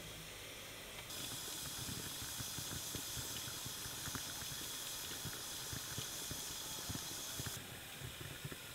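Enamel kettle at the boil on a small stove, steam hissing from its spout, with faint small ticks underneath. The hiss gets louder about a second in and drops back near the end.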